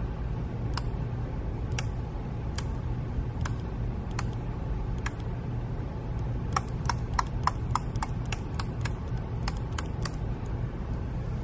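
Relays in a PLC clicking as they are switched on and off from its touchscreen. Single clicks come about a second apart, then a quicker run of about three clicks a second in the second half, over a steady low hum.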